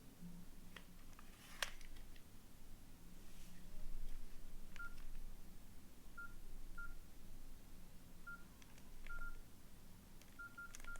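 Nokia N80 phone keypad beeping as keys are pressed: short single-pitched key tones at irregular intervals, mostly in the second half, with a few small clicks of handling and buttons.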